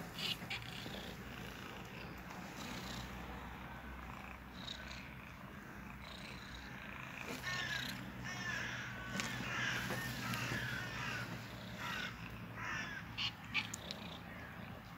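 A tabby-and-white street cat purring steadily while being stroked, with a run of short, high mews through the middle stretch.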